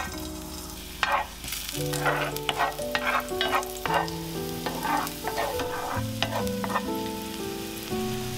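Sliced garlic sizzling in hot olive oil in a textured stainless steel pan, with a wooden spatula stirring and scraping through it in repeated short strokes from about a second in. Background music with held notes plays underneath.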